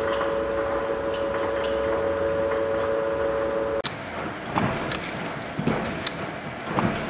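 Pellet-making factory machinery running: a steady hum with a constant tone, which cuts off suddenly a little under four seconds in. Irregular sharp clicks and knocks of machines working follow.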